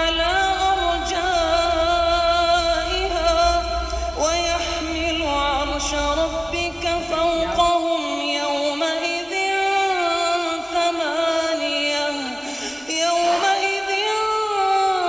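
A single voice chanting a Quran recitation in Arabic, holding long notes with melodic ornaments. A low rumble runs underneath and stops about eight seconds in.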